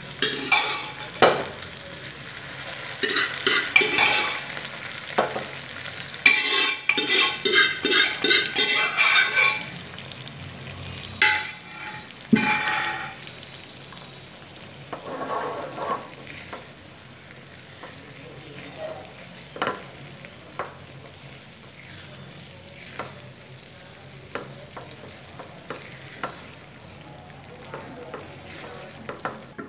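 A spoon stirring cooked toor dal into a sizzling tomato-onion masala in a nonstick frying pan. There are quick scraping strokes for the first ten seconds or so, then a quieter sizzle with an occasional click of the spoon against the pan.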